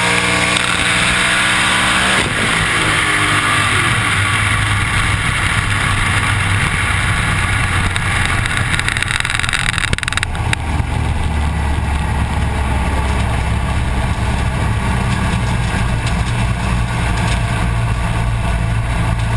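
Car engine heard from inside the cabin, rising in revs for the first couple of seconds, then running at a steady low drone. The higher hiss drops away sharply about ten seconds in.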